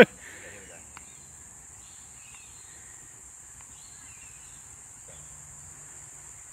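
Steady high-pitched insect buzzing with a few faint bird chirps, opening with the end of a loud, falling bird call.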